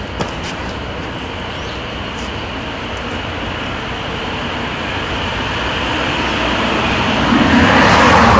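Street traffic noise, a steady rush that grows louder near the end as a car drives past close by.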